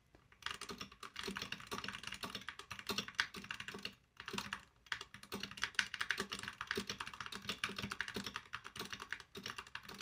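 Fast, continuous typing on a Skyloong SK61 compact mechanical keyboard with red switches: a dense clatter of keystrokes, broken by short pauses about four seconds in and again near the end.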